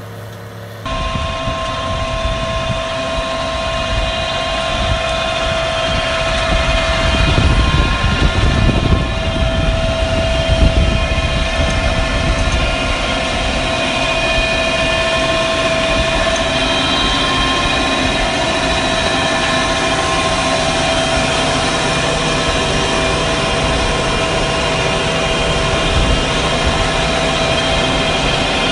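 Tractor-driven Alpego rotary bed-forming machine laying drip tape, running with steady engine and machine noise and a constant whine of several high tones. It starts suddenly about a second in, after a short, quieter stretch of a tracked tractor pulling a cultivator. The low rumble swells for a few seconds near the middle.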